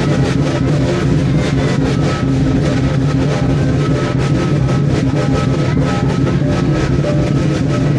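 Parade drums and cymbals beaten in a fast, continuous run of hits over a steady low hum.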